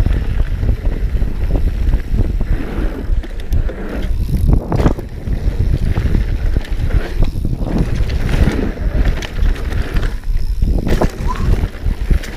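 A mountain bike ridden fast over a dirt jump line: wind buffeting the camera microphone and knobby tyres rolling on dirt, a steady heavy rumble broken by a few short thuds and rattles as the bike lands and rolls over the jumps.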